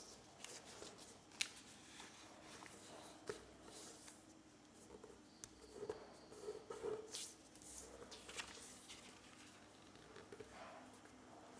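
Paper being folded and creased by hand: faint, irregular rustles and crinkles with a few sharper clicks, the sharpest about a second and a half in.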